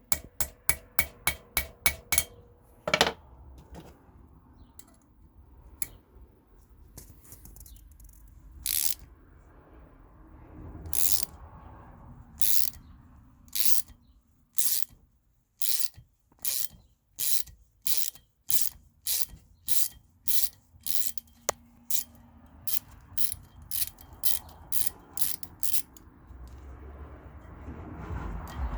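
A small hammer tapping a T9 Torx bit into a drilled-out broken exhaust stud, with quick ringing metal taps and one harder blow. Then a 1/4-inch ratchet clicking in steady back-and-forth strokes, about one stroke a second or a little faster, as the hammered-in bit turns the broken stud out of the head.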